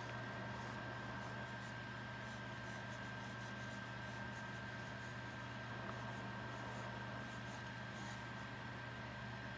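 Wooden graphite pencil scratching in quick, light sketching strokes on sketchbook paper, over a steady low hum.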